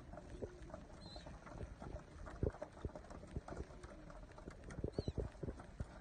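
Pigeons pecking seed off a wooden board: irregular light taps, thickening into a quick run about five seconds in.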